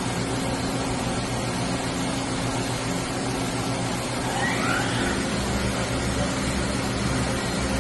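Spindle of a Hartford PRW-5340 bridge-type CNC machining center running with a steady hum. About four and a half seconds in, a whine rises in pitch and the low hum grows stronger as the spindle speeds up toward about 4,000 rpm.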